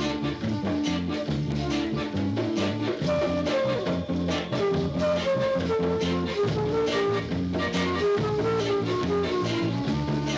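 Roots reggae record playing: a steady drum beat over a moving bass line, with guitar.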